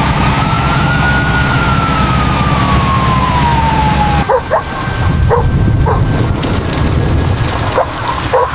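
An emergency-vehicle siren sounds in one slow rise and fall over steady heavy rain and a low rumble. The siren cuts off about four seconds in, and a German Shepherd then barks a few times.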